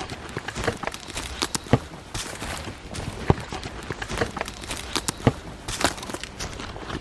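Footsteps crunching through dry leaf litter, with irregular snaps and crunches several times a second.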